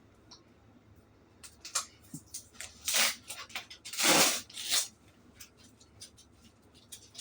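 Packaging being handled and opened by hand: scattered clicks and rustles, with two louder ripping sounds about three and four seconds in.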